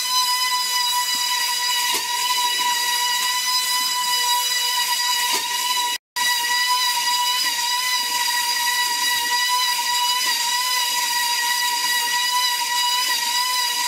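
The small motor of a K'Nex air-powered coaster car, spinning its propeller, gives a steady high-pitched whine with a hiss of moving air. It breaks off for a moment about six seconds in.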